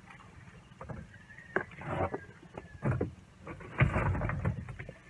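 Water sloshing around a small boat in shallow water, with irregular knocks and thumps, the loudest about four seconds in.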